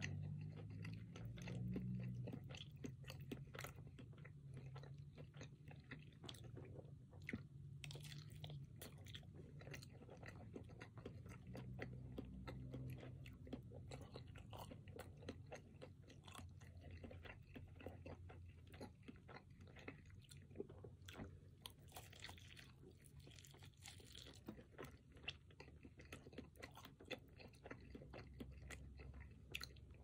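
A person biting and chewing a spice-crusted roasted chicken drumstick close to the microphone: a steady run of small wet clicks and crackles from mouth and crust.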